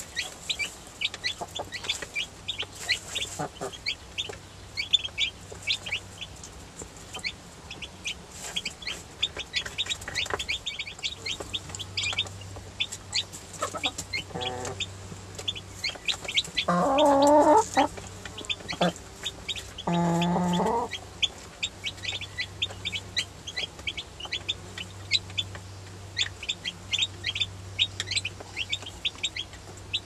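A brood of baby chickens peeping constantly, many short high peeps a second. Two louder, lower calls of about a second each come about two-thirds of the way through.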